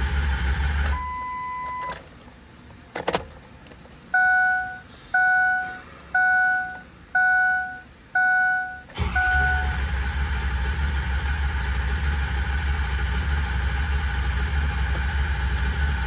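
Ford 6.0 Powerstroke V8 diesel running, then shut off about a second in. A dash chime tone and a click follow, then five warning chimes about a second apart. At about nine seconds the engine fires and settles into a steady idle: a successful restart after its injector O-ring and high-pressure oil repair.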